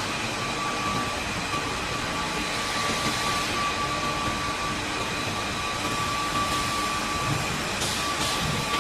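Fiber cement board production machinery running: a steady noise with a thin, steady whine through it, and a couple of brief hisses near the end.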